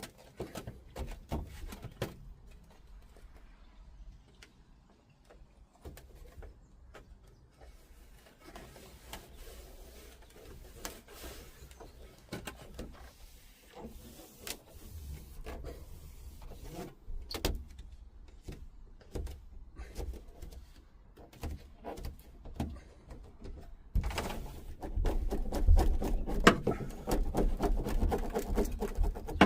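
Irregular knocks, taps and rustles from handling foil-backed sound-deadening mat against a van's sheet-metal roof, growing into louder, longer rubbing and thudding about three-quarters of the way through as the mat is pressed or rolled on.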